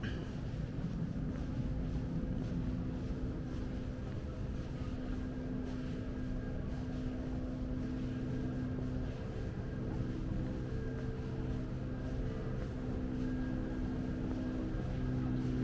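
Steady low hum of a running motor, with a few held tones over a low rumble.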